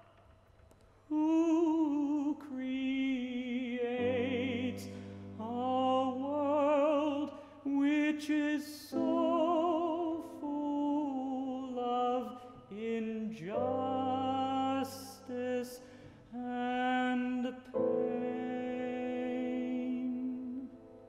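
Male classical singer singing with a wide vibrato in operatic style, accompanied by a grand piano. He sings in separate phrases, starting about a second in.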